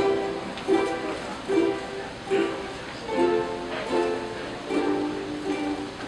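Ukulele strummed in chords at a steady, even pulse, roughly one accented strum every 0.8 seconds, with no singing.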